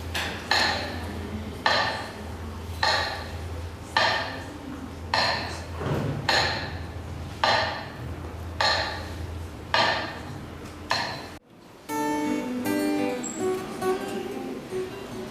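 Evenly spaced metallic clinks, one about every second, each with a short ring, over a steady low hum; they stop abruptly about eleven seconds in, and plucked acoustic guitar notes begin.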